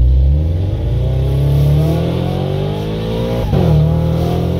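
Supercharged Toyota GR86's flat-four engine accelerating hard, heard from inside the cabin. The revs climb steadily, break briefly about three and a half seconds in, then pick up and rise again.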